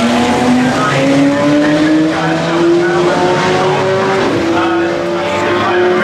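Race car V8 engines, led by the NASCAR Next Gen Chevrolet Camaro ZL1, accelerating hard with other GT cars close behind. The loudest engine note rises steadily through one long gear.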